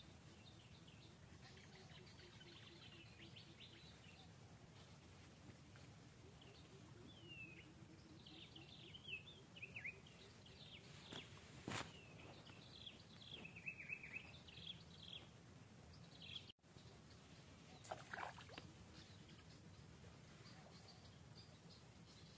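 Faint outdoor forest ambience with a steady high hiss, and a run of short, high chirping calls through the middle; a single sharp click sounds about twelve seconds in.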